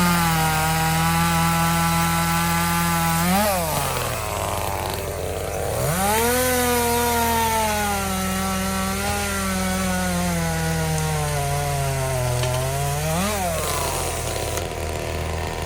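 Chainsaw cutting into wood at full throttle, its engine note sagging slowly as it works under load in the cut. About three seconds in, and again near the end, the pitch briefly jumps up and drops back.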